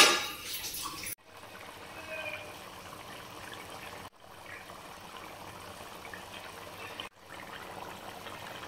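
Thick tamarind curry (bitter gourd puli kulambu) bubbling at a rolling boil in an aluminium pot: a steady bubbling that drops out briefly three times.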